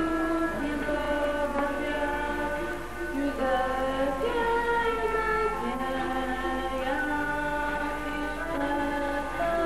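Slow music, a melody of held notes stepping from pitch to pitch, with a steady low mains hum underneath.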